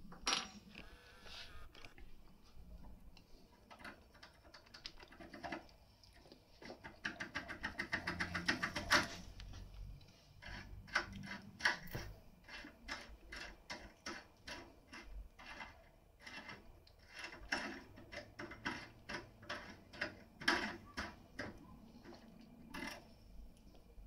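Small metallic clicks and rattles from a tin-foil impression pick being worked inside a brass TESA euro cylinder. There is a fast run of clicks about a third of the way in, then scattered single clicks.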